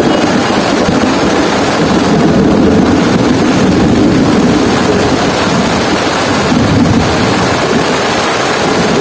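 Heavy rain falling steadily on a tarp shelter overhead, a dense, unbroken hiss with no letup.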